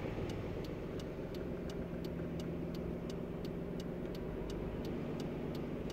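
The R32's engine running steadily, heard inside the cabin as a low hum, with a turn-signal flasher clicking evenly about three times a second.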